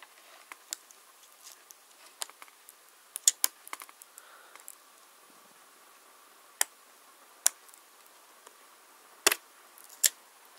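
Irregular sharp little plastic clicks and taps as fingertips and fingernails work the black flip-up latch of a laptop keyboard's ribbon-cable connector, to release the cable. The loudest clicks come about three, six and a half, seven and a half, nine and ten seconds in.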